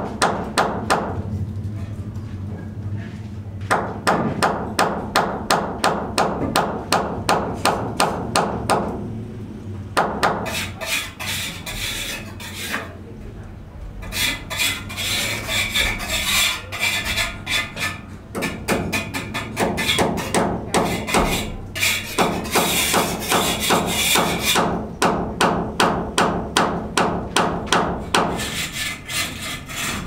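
Hand hammering at a building site: a steady run of hard blows, about two to three a second, in several bouts with short pauses. A rasping, scraping sound is mixed in through parts of the middle stretch.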